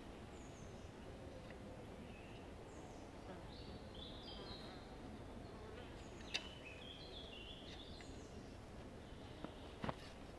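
Quiet woodland ambience with small birds calling in short, high, stepped chirps. A sharp click comes about six seconds in and another near the end.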